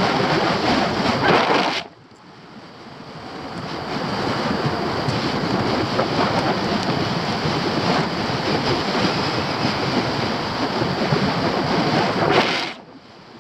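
Wind rushing over the camera microphone in paraglider flight, a steady hiss. It falls away suddenly about two seconds in, builds back up over a couple of seconds, then drops away suddenly again near the end.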